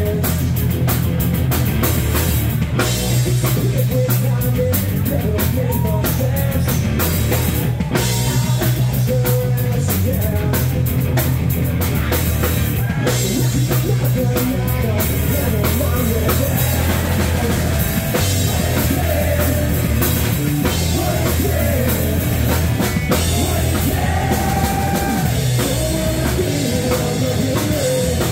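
Live rock band playing: electric guitars over a drum kit, with a steady beat and no break.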